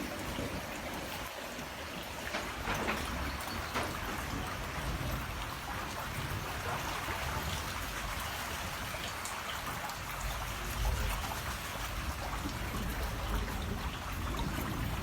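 Rain falling steadily, with a low rumble that swells a little about ten seconds in.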